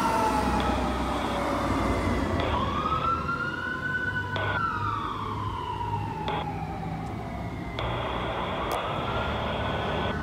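Fire apparatus sirens wailing, several overlapping slow rise-and-fall sweeps, slowly getting quieter as the trucks drive away. A low engine rumble sits underneath.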